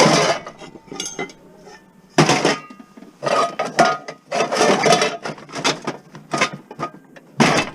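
Scrap metal clanking and scraping in an irregular series of hits and rasps, some hits leaving a short metallic ring.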